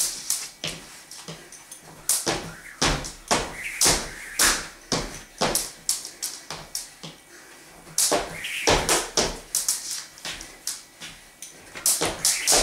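Jump rope slapping the floor and feet landing on a hard floor in a steady skipping rhythm, about two knocks a second. The knocks stop for about two seconds near the middle, then start again.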